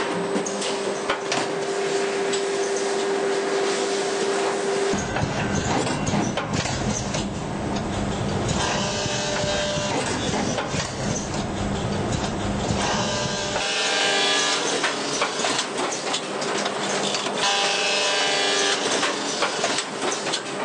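Muller Martini SigmaBinder perfect-binding machinery running: a steady mechanical hum with clicking at first. About five seconds in it changes abruptly to a deeper rumble, and about two-thirds of the way through to a higher clatter, as the conveyor, measuring station and binder clamp infeed mechanisms run.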